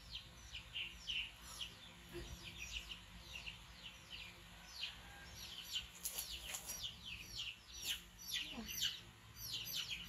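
Small birds chirping and twittering: a busy run of short, falling chirps, several a second.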